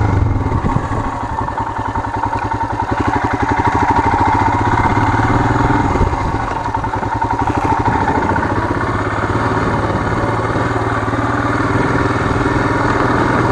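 Royal Enfield Himalayan's single-cylinder engine running in a steady, even pulse as the motorcycle is ridden off-road over rocky ground. The engine eases off a little about a second in, then picks up again.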